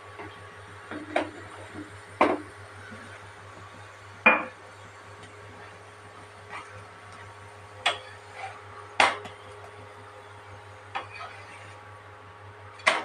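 A wooden spatula clacking and scraping against a frying pan as a paratha is turned and pressed. About seven sharp knocks come at irregular gaps of a second or two, over a low steady hum.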